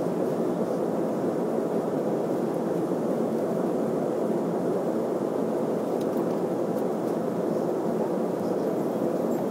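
Jet airliner cabin noise in cruise flight: the steady, even drone of engines and airflow heard from inside the passenger cabin, deep and unchanging.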